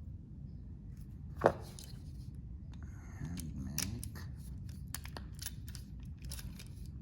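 Hand tool working Cat6 network cable: one sharp snip-like click about a second and a half in, among light clicks and handling noises.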